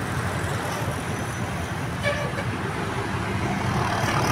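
A bus engine running steadily as the bus moves off, with a short horn toot about two seconds in.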